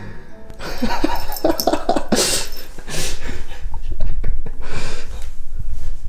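Light background music made of short, quick notes.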